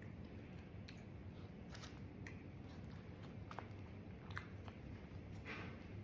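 A person chewing a mouthful of loaded baked potato, with scattered small mouth clicks.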